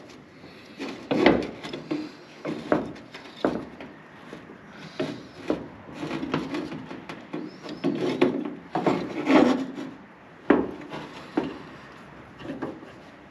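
Hand work on parts: uneven scraping and rubbing strokes, broken by several sharp knocks.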